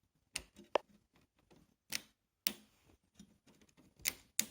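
Parts of an LCD TV being handled during disassembly: about six sharp clicks and knocks at irregular intervals.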